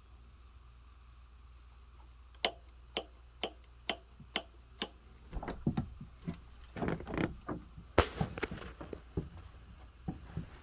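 Six sharp clicks about two a second, then irregular knocks and clattering of handling, with one loud click about eight seconds in.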